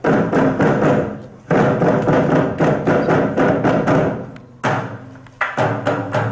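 Rhythmic wooden percussion played in loud bursts of rapid strikes, breaking off briefly about a second and a half in and again near four and a half seconds.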